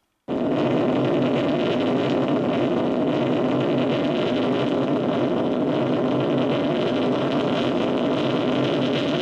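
Loud, steady rumble of a huge explosion, starting abruptly just after the start and holding without a break.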